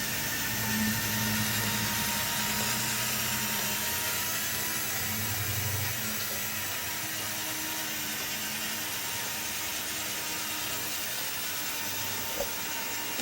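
Small electric motor of a Disney D23 Mark VII monorail playset, upgraded with a Team Losi speed controller, running fast along its track: a steady whir with a low hum that is stronger in the first half. A small click near the end.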